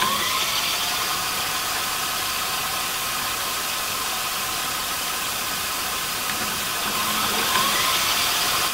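VCR fast-forward sound effect: a steady whirring hiss with a thin whine that rises in pitch at the start and again near the end.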